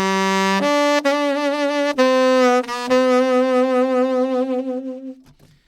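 Saxophone playing a slow phrase of three held notes. The last is a long note with vibrato that fades away in a decrescendo.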